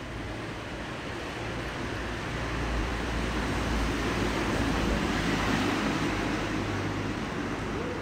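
Street traffic noise: a vehicle passing, its rumble swelling to a peak about five seconds in and then easing off.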